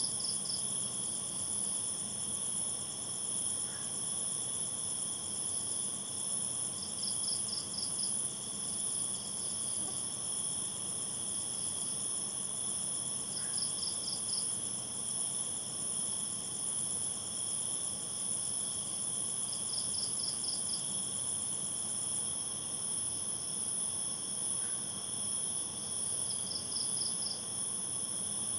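Night chorus of crickets and other insects, several steady high trilling tones running together. A separate short chirp of about five quick pulses comes back every six or seven seconds.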